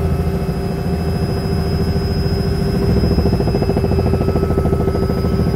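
Helicopter in flight heard from inside the cabin: a steady drone of engine and rotor, with a thin high whine over it.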